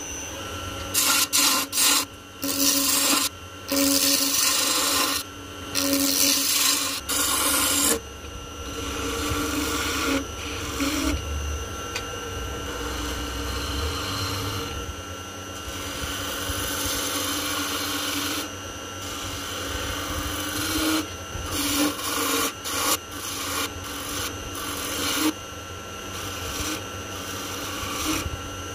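Wood lathe running with a handheld turning tool cutting into a spinning ebony spindle. Short loud bursts of scraping come in the first several seconds, then steadier cutting, over the lathe's steady hum.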